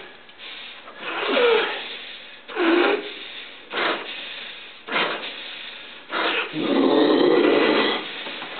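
Malinois gripping a decoy's bite suit, growling and blowing hard through its nose in a series of short bursts, then a longer, steady growl from about six and a half seconds in.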